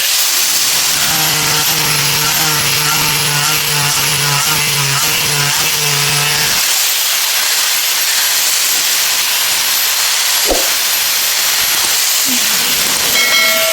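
Small high-speed power tool running with a steady hiss and a thin high whine, with a low pulsing buzz through the first half. Near the end it is switched off and the whine falls as the motor spins down.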